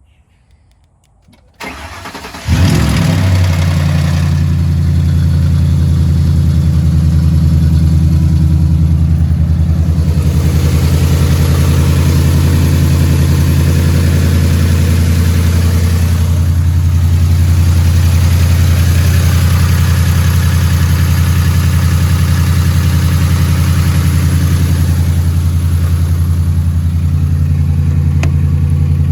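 2011 Ford F-150's engine cranked by the starter about two seconds in, catching and settling into a steady idle. The knock in it is taken by the owner for rod knock.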